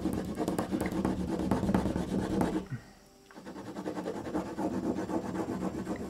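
Black crayon scribbled across paper in quick short strokes, a dense scratchy rubbing. It stops for a moment about three seconds in, then carries on.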